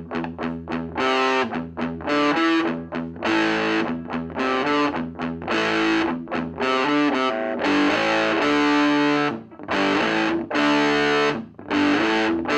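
Electric guitar played through an Ever Play RG60 solid-state combo amp's overdrive channel, distorted. It opens with a run of quick picked notes, then moves to chords and held notes, with two short stops near the end.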